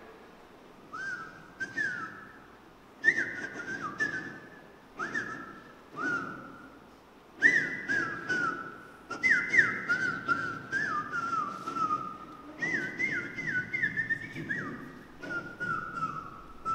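High whistled notes, each short and sliding quickly downward, repeated in quick clusters, with clicks among them.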